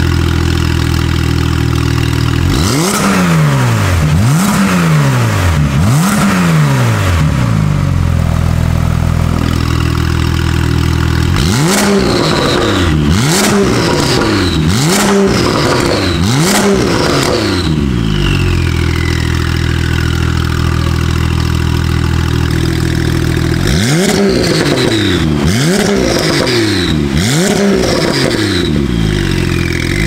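Porsche 991.2 Carrera 4S's twin-turbo flat-six, fitted with a Fi valvetronic muffler and catless downpipes, idling and being blipped at the tailpipes. There are three revs with the exhaust valves closed, then, with the valves opened, two runs of five quick revs, with idle between them and short falling whistles after the revs.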